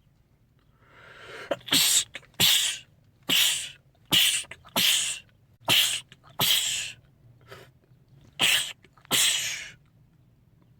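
A man sneezing over and over: a breathy build-up, then about nine loud, sharp sneezes, mostly in quick pairs.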